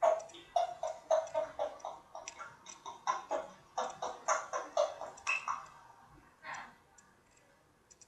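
African grey parrot vocalising: a rapid run of short, clicky, babbling syllables for about five and a half seconds, then one more short call about a second later.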